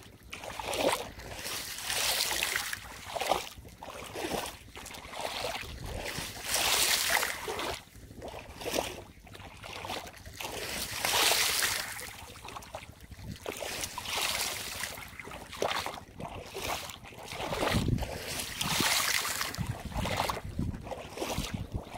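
Shallow water splashing and sloshing in irregular surges as a person wades and kicks through a flooded rice field, kicking the water to startle climbing perch into darting.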